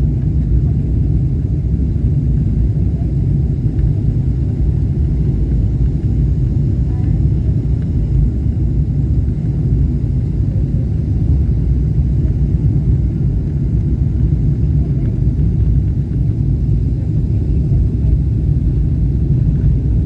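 Steady low rumble inside the cabin of a Boeing 777-300ER on approach: its GE90 engines and the airflow over the fuselage.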